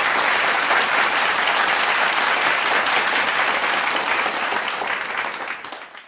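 Audience applauding: many hands clapping in a dense, steady patter that tapers off near the end.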